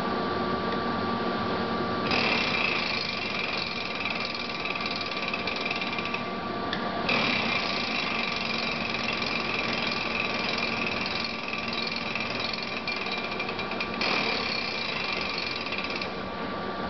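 Large Lodge & Shipley Magnaturn engine lathe running with a steady hum. Its carriage apron mechanism engages in stretches, adding a higher mechanical rattle and whine that comes in about two seconds in, drops out briefly near six seconds, returns a second later and stops shortly before the end.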